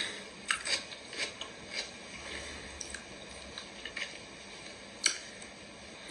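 Close-miked eating: wet chewing and mouth smacks with scattered sharp clicks of a utensil, the loudest about half a second, a second and five seconds in.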